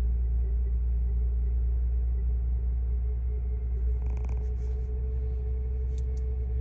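A bad alternator on a 2005 Lexus GS whines with a steady tone over the engine's low idle rumble; the whine is the sign of the failing alternator. A couple of faint ticks come near the end.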